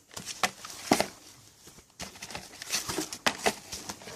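Packaging being handled: rustling and crinkling with irregular light clicks and taps, in two spells with a short lull about a second in.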